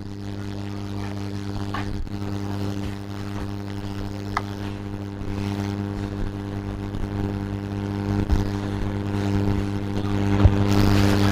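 Steady electrical hum with a stack of even overtones from a bench power supply driving about 3 amps at 10 volts into a laptop's shorted 19-volt power rail. It grows louder towards the end, with a few faint clicks.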